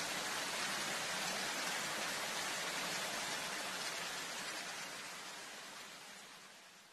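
A steady, even hiss of noise, strongest in the high range, with no distinct events, fading out over the last few seconds.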